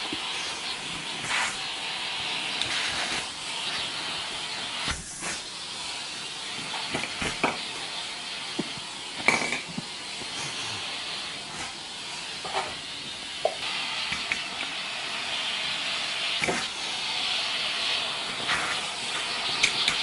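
Vacuum cleaner running, a steady airy hiss of suction, with occasional short knocks and rustles as the nozzle brushes a duvet.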